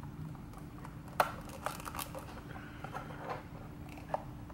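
Small plastic action-figure parts being handled and pressed into place by hand: a scatter of light sharp clicks and rubbing, the loudest click about a second in, over a faint steady hum.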